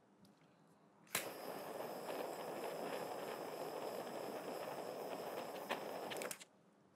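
Butane torch lighter clicked on, its jet flame hissing steadily for about five seconds while it lights a hemp blunt, then shut off abruptly.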